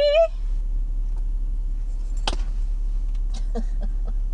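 Low steady rumble of a car's cabin in stopped traffic, with a few sharp light clicks scattered through it. A woman's held sung note trails off at the very start.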